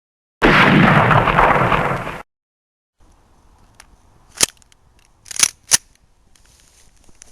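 A loud rush of noise lasting about two seconds that cuts off abruptly. After a pause, a gas blowback Baby Hi-Capa airsoft pistol fires three sharp shots, the last two about a third of a second apart, followed by a faint hiss.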